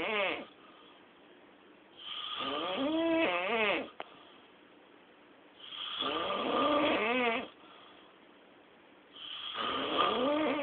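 Snoring in long, drawn-out snores that repeat about every three and a half to four seconds, each with a wavering, whining pitch, with quiet breaths between them.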